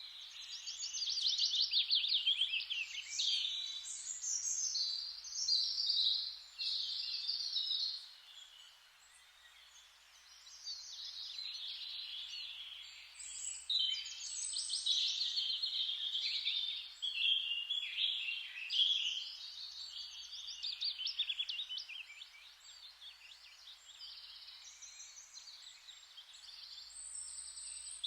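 Forest ambience with many songbirds singing at once, fast trills and chirps overlapping, over a faint steady hiss. The birdsong thins out for a few seconds about a third of the way in and again near the end.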